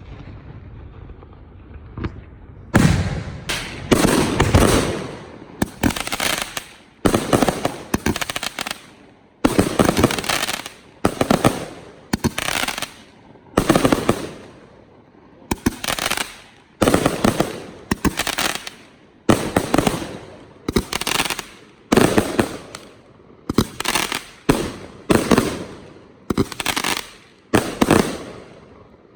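Professional display fireworks going off in quick succession: after a short lull, about twenty crackling bursts follow one another roughly once a second, each a dense crackle that fades quickly.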